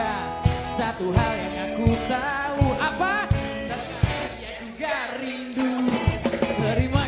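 Live pop-rock band playing with a steady drum-kit beat, guitars and bass, and a melody line that slides up and down in pitch.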